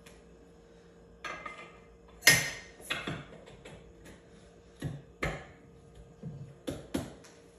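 A series of sharp metal clinks and knocks as steel parts of a Rock Hog down-the-hole drill hammer are handled and set into the top of its steel casing, the loudest about two seconds in.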